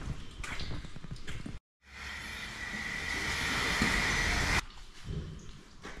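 Gumboot footsteps on the wet concrete of a milking shed. After a brief break comes a loud, steady hiss that grows a little louder and then cuts off suddenly about four and a half seconds in.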